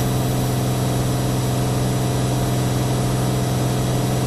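Cirrus SR22's six-cylinder Continental engine and propeller droning steadily in the cabin during a climb: a constant low hum with a stack of steady overtones.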